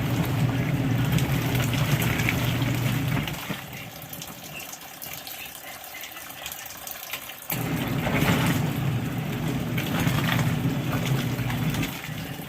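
Small portable washing machine agitating a load of clothes in soapy water: its motor hums and the water churns in two runs of about four seconds, with a pause of about four seconds between them, while the tub keeps filling.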